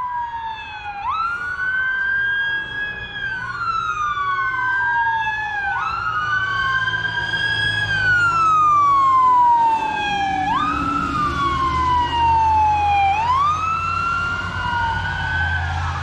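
Fire truck sirens wailing on a call. Each sweep rises quickly and falls slowly, repeating about every two and a half seconds, with two sirens overlapping out of step. A truck engine's low rumble swells as one passes about halfway through.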